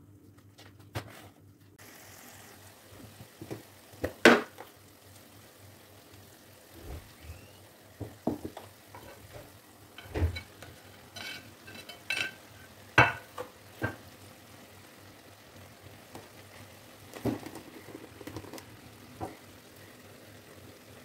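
Chopped onions frying in a pan with a low, steady sizzle, while a spatula knocks and scrapes shredded chicken out of a bowl into the pan, giving repeated sharp clicks and taps. The sizzle starts about two seconds in.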